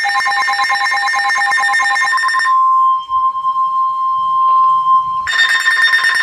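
Emergency Alert System alert tones announcing a severe thunderstorm warning: a rapidly pulsing electronic alarm, which gives way about two and a half seconds in to a single steady tone for about three seconds, then the pulsing alarm starts again.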